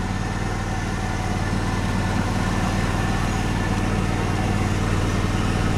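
Riding lawn mower's engine running steadily as the mower drives across the lawn.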